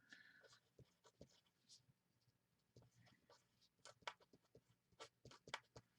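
Faint writing: a pen scratching and tapping in short strokes, with a quicker run of strokes near the end.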